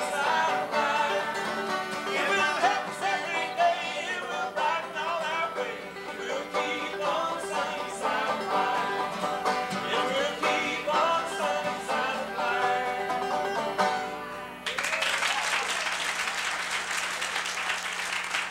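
Banjo and acoustic guitar playing a song with singing. The music stops about fifteen seconds in and an audience breaks into applause.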